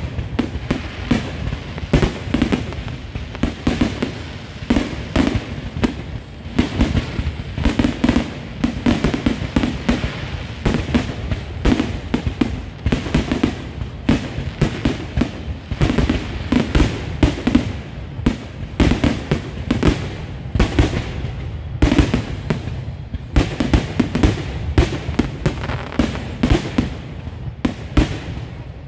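Aerial firework shells launching and bursting in quick, unbroken succession: many sharp bangs and crackles every second over a steady deep rumble.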